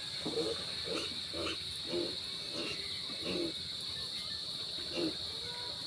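A steady high insect chorus, with a run of short low sounds repeating about twice a second over it; they stop for a moment partway and come back once near the end.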